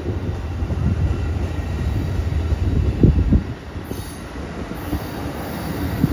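Amtrak Superliner passenger cars rolling slowly past on the rails, a steady low rumble of wheels and running gear, with a few loud clunks about three seconds in.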